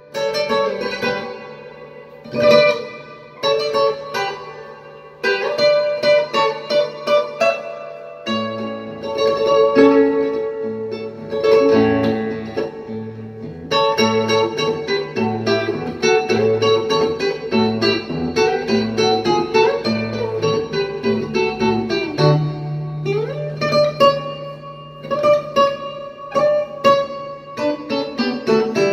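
Acoustic guitar played solo as the instrumental introduction to a song. It opens with a few loose chords and runs, then from about eight seconds in settles into a steady rhythm with alternating bass notes under the chords.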